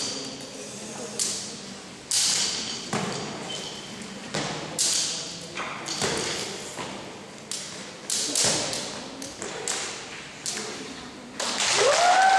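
Irregular slaps and thumps of a jump rope and of feet and hands striking the sports hall floor during a freestyle rope-skipping routine, echoing in the hall. Near the end applause breaks out, with a rising whoop.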